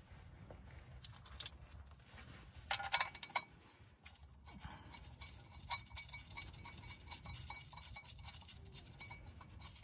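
Faint clicks and small metallic clinks of clutch pressure-plate bolts being handled and started by a gloved hand on the pressure plate, with a louder cluster of clinks about three seconds in, over a faint low hum.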